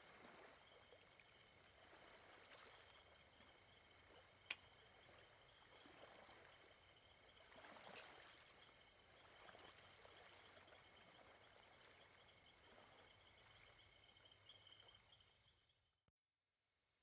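Near silence: faint night ambience with a steady high insect trill, soft rustles of movement and one small click about four and a half seconds in, all fading out just before the end.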